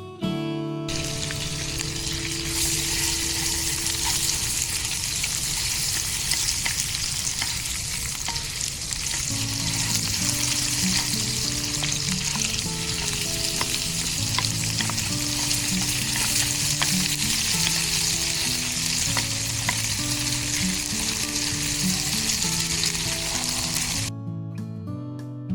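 Food sizzling as it fries in a hot pan, a steady hiss with small crackling pops, starting about a second in and stopping shortly before the end. Guitar music plays quietly beneath it from about halfway.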